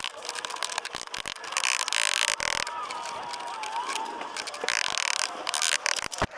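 Concrete block pavers being prised up and scraped out of their sand bed: two spells of harsh, gritty scraping, with clinks and knocks of block against block around them.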